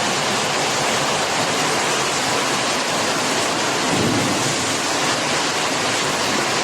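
Heavy rain pouring down in a storm, a steady dense hiss without letting up.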